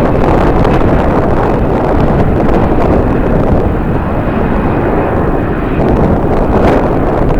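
Jet airliner engines running loud and steady, a faint high whine fading early on, with strong wind rumbling on the microphone.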